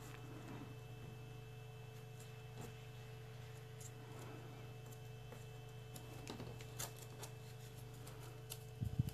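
Faint scattered crinkles and taps of origami paper being folded and pressed into creases by hand, with a small cluster of louder paper-handling sounds near the end, over a steady low electrical hum.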